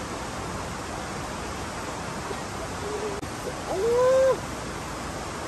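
A steady rushing noise, with a short hooting call about four seconds in that rises and then holds for about half a second.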